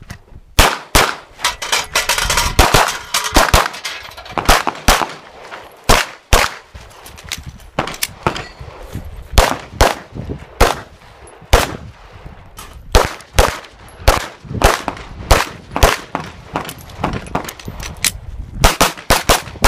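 Strings of rapid 9mm pistol shots from a Smith & Wesson M&P, with steel targets clanging on hits; the shots begin under a second in and come in quick bursts with short pauses through the course of fire.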